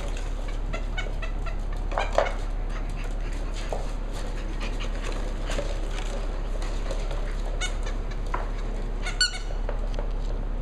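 Seven-week-old Cavalier King Charles spaniel puppies giving short, high-pitched yips and squeaks as they play, loudest about two seconds in and again near the end.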